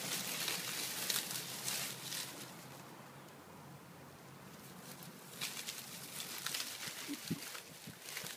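Spinone rummaging nose-first in leafy garden plants: scattered rustling and snuffling, with a quieter lull in the middle and a brief low sound from the dog about seven seconds in.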